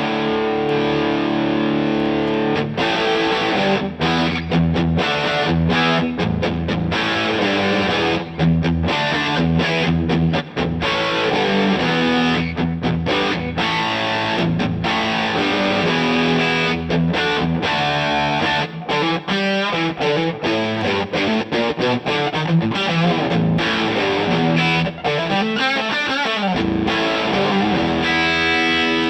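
Distorted electric guitar played through a DVII guitar amplifier: a held chord, then fast riffing with many quick stops between the chords.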